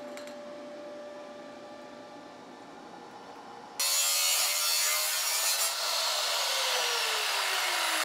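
Abrasive chop saw cutting through a steel pipe: a loud, harsh grinding hiss that starts suddenly a little under four seconds in. Its pitch falls over the last two seconds before it cuts off abruptly. Before it there is only a faint steady hum.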